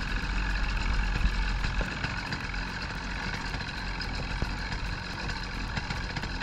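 25 hp outboard motor running steadily, a constant low hum with no change in speed.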